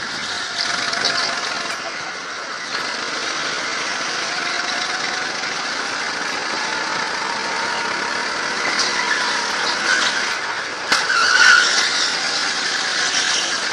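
Go-kart engine running under throttle as the kart laps through corners, with tyre squeal as it slides. A sharp knock comes about eleven seconds in.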